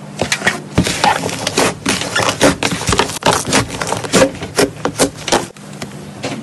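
Teal slime with a cracked, dried top layer being pressed and kneaded by hand: a dense run of sharp crackles, pops and squelches that thins out near the end.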